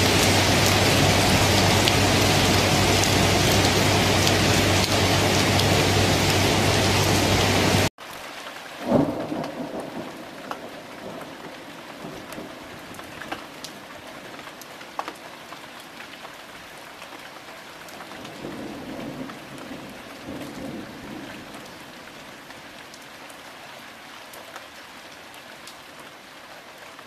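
Thunderstorm: heavy rain in a loud, steady downpour cuts off suddenly about eight seconds in, giving way to much quieter rain. About a second later comes a sharp thunderclap with rumbling after it, and a softer low rumble later on, while the lighter rain slowly fades.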